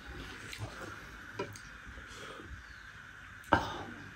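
Eating by hand from a steel plate: quiet chewing and fingers working rice, with a small click and one sharp clink about three and a half seconds in as a glass bowl is lifted from beside the plate.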